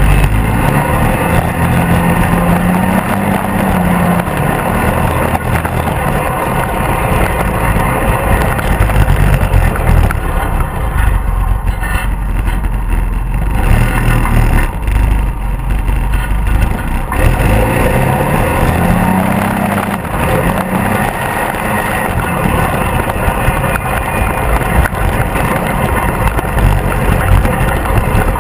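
Polaris RZR 800 side-by-side's twin-cylinder engine running under way, climbing in pitch as it accelerates twice, with an eased-off stretch in the middle. It is heard from inside the open cab, with wind and tyre rumble over the engine.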